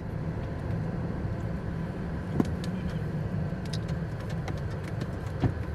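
Car driving along a road: a steady low rumble of engine and tyres, with a couple of faint clicks.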